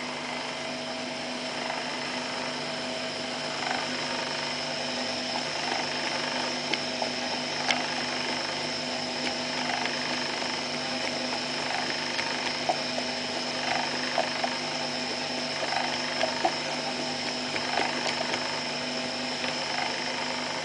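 Electric motor and gear reducer driving a small screw oil press, running with a steady hum and whine while cold-pressing walnut kernels. Small irregular clicks come through all along.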